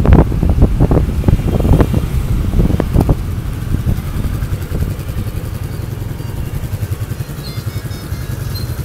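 Wind buffeting the microphone on a moving motorbike, easing after about three seconds into the steady low rumble of motorbike engines and traffic.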